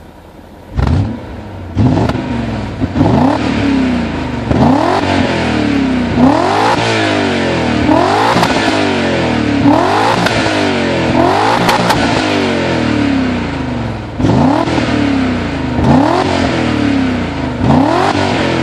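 BMW M5 E39's V8 through a Supersprint Magnum exhaust, free-revved with repeated throttle blips, each rev rising and falling back, roughly one every second and a half. It runs quieter for about the first second before the first rev, and there is a short lull near the end before the blips resume.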